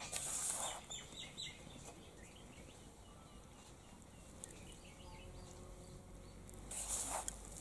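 Hands rubbing and squeezing a crumbly wheat-flour and semolina mix in a steel bowl: a soft rustling scrape at the start and again near the end. Faint bird chirps come in between.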